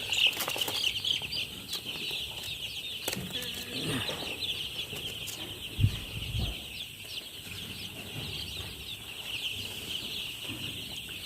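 A large flock of five-day-old chicks peeping continuously, a dense high chorus of overlapping short chirps. A brief low thump about six seconds in.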